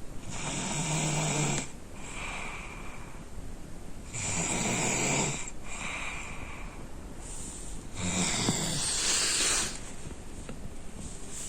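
A boy snoring in deep sleep: three loud snores about four seconds apart, with softer breaths between them.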